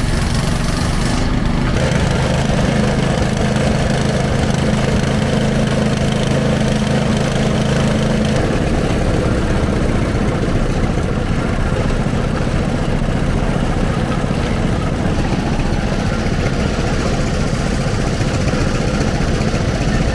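An engine running steadily at idle, with a low, even hum that drops away about eight seconds in, leaving a steady noisy din.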